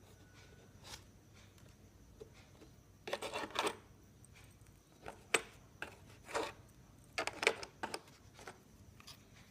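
Small hard parts of a mini rotary tool kit being handled: scattered clicks and short rattles, loudest a few seconds in and again near the end.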